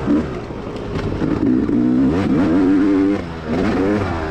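Dirt bike engine revving up and down as the throttle is worked, with a short let-off near the end before it picks up again.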